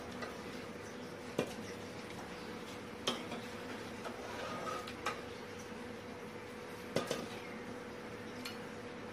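A metal ladle scooping boiled chicken pieces out of an aluminium pot of stock, knocking against the pot about four times, over a faint steady hum.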